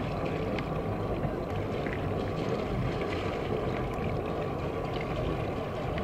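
A sailing yacht's auxiliary engine running steadily at low speed as the boat motors out with its sails furled.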